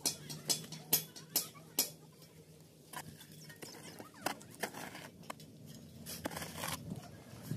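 Snips and clicks of hand tools working on a submersible pump's flat cable: five sharp snaps in the first two seconds, then softer irregular ticks and a brief rustle.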